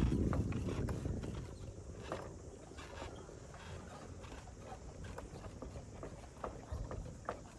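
Footsteps knocking on the wooden planks of an elevated walkway bridge, in irregular clicks and thuds, over a low rumble that fades during the first second or two.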